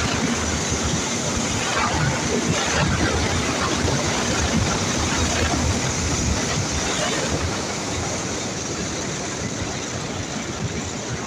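Freshly overhauled Ural sidecar motorcycle's flat-twin engine running on the move, largely buried under loud wind rush on the microphone.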